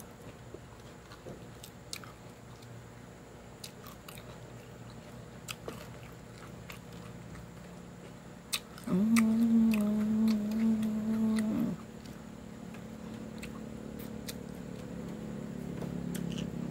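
Close-miked chewing and crunching of raw lettuce, with small crisp clicks throughout. A loud steady tone is held for about three seconds just past the middle. A low engine-like rumble builds near the end.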